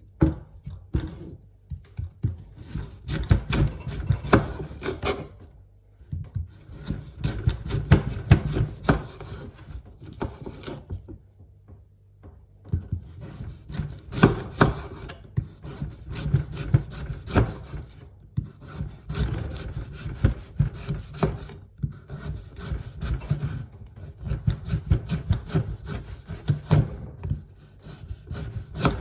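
A knife slicing sweet potatoes on a wooden cutting board, in runs of rapid rasping, knocking strokes that last a few seconds each, with short pauses between them.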